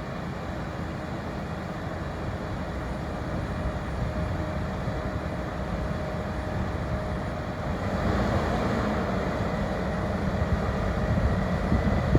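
Heavy diesel farm machinery running steadily, a deep engine rumble with a faint steady whine, growing louder about eight seconds in as it draws nearer or works harder.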